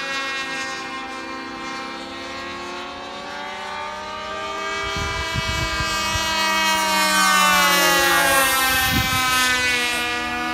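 Glow-fuel engines of radio-controlled model airplanes flying overhead, a steady high buzz whose pitch bends up and down as the planes pass, growing louder about seven seconds in.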